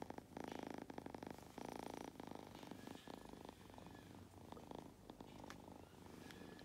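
Long-haired black-and-white kitten purring close up, a fast even rumble that swells and fades with each breath, stronger in the first few seconds and fainter toward the end.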